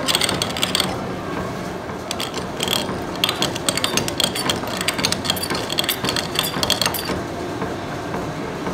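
Twist drill on a lathe boring into the end of a spinning steel truck axle, a rapid, irregular clicking and scraping of the cut over the running machine. The sharp clicking thins out about seven seconds in, leaving a steadier machining noise.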